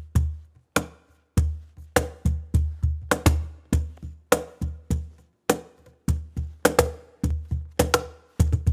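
Schlagwerk 2-in-1 Deluxe cajon played by hand in a steady groove: deep kick-drum-like bass strokes alternating with sharp, snare-like slaps on the wooden front, with a short pause about a second in. It is heard through close microphones on the snare and the kick port, with compression switched off for a few seconds in the middle.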